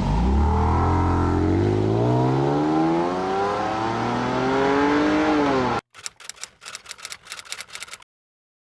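BMW M4's twin-turbo inline-six accelerating hard from a standing start, its revs rising steadily for about five seconds before easing off. It then cuts to about two seconds of rapid clicking.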